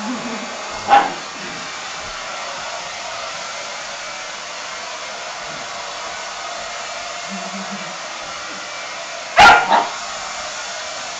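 A hair dryer blowing steadily, with a dog barking sharply at it about a second in and again, loudest, twice in quick succession near the end.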